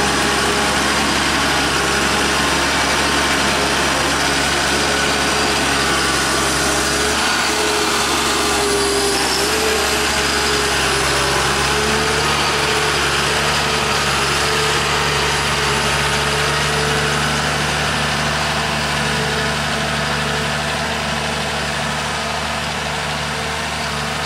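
John Deere forwarder's diesel engine running steadily as the tracked machine drives slowly, with a steady whine over the engine note. It gets slightly quieter near the end.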